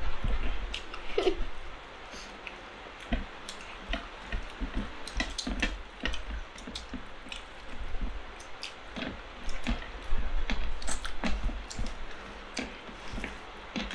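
People eating biryani with their hands: chewing with many short, wet clicks and smacks, and fingers squishing and mixing rice on the plates.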